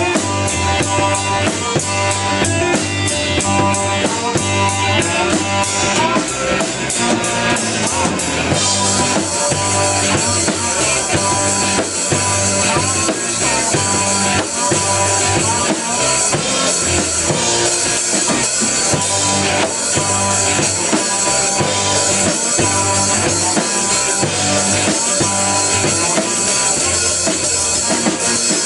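Blues band music: a drum kit keeps a steady beat under bass and guitar. Rapid cymbal ticks run for about the first eight seconds, then give way to a steady cymbal wash.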